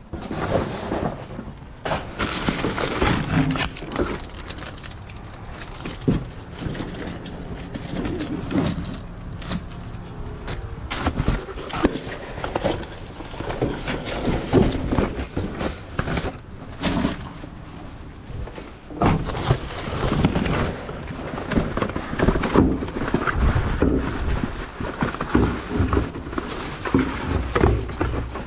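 Rummaging in a metal dumpster: cardboard boxes and bagged items shifted and pulled about, with irregular knocks, scrapes and crinkling.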